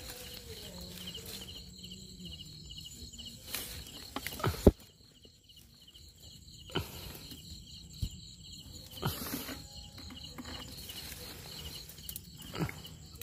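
Insects chirping in a steady pulsing rhythm, with a few short sharp knocks, the loudest about four and a half seconds in.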